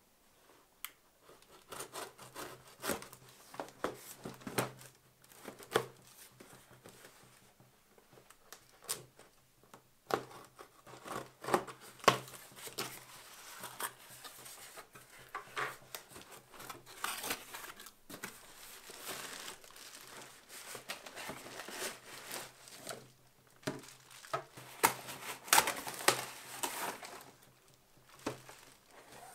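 Unboxing sounds: a small knife slitting packing tape on a cardboard box, cardboard flaps scraping and rubbing, and plastic wrapping crinkling as the parts are handled, in irregular bursts of scrapes, rustles and sharp clicks.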